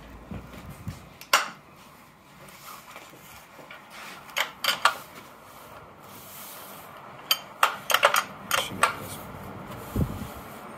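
Metal clicks and clinks of wrenches working the hub-motor axle nuts as a 21 mm ratcheting wrench backs them off, coming in short scattered clusters. A dull thump near the end.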